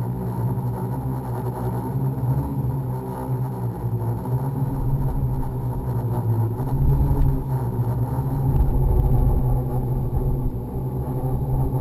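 Electric motors and propellers of a radio-controlled model aircraft, heard through its onboard camera: a steady pitched hum with several tones, shifting in pitch a few times.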